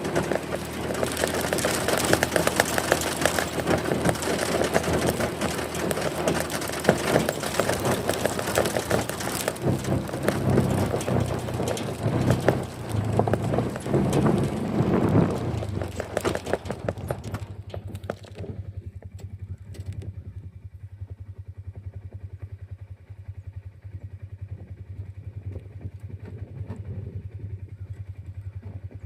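A motor vehicle running, loud with rushing noise for the first two thirds, then dropping about eighteen seconds in to a quieter, steady low hum.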